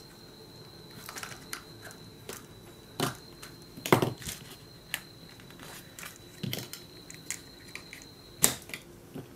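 Plastic clicks and knocks from a three-pole magnetic contactor's case being handled and pried apart by hand. The taps come irregularly, the loudest about 3, 4 and 8½ seconds in.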